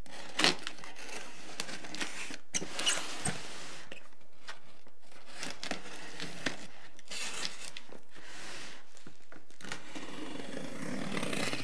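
Knife blade slitting the packing tape along the seams of a cardboard box: intermittent scraping, tearing strokes with a few light clicks.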